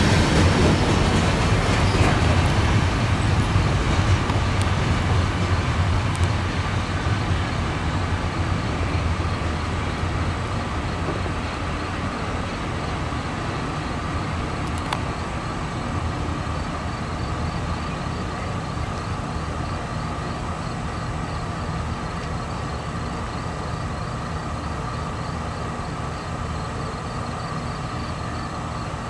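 Loaded CSX rapid discharge coal hopper cars rolling away down the track after the last car has passed. A low rumble from the wheels and rails that fades over the first ten seconds or so, then carries on steadily, fainter.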